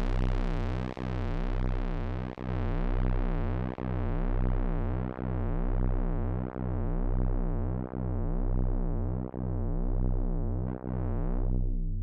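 Behringer UB-Xa analog polysynth holding a deep, bright bass note that throbs slowly, about once every second and a half. The tone darkens steadily as the filter is turned down, then closes sharply near the end.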